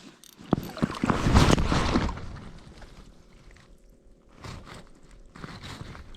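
Handling noise from an angler fighting a fish through the ice: a sharp knock about half a second in, then about a second of loud rustling and scraping, then quieter scattered rustles.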